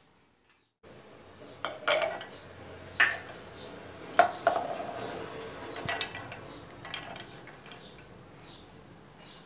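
Hard knocks and clatter of chunks of ginger and garlic cloves dropped into a plastic hand-blender beaker, with a bowl rim knocking against it. There are about half a dozen sharp knocks; the loudest, about four seconds in, rings briefly.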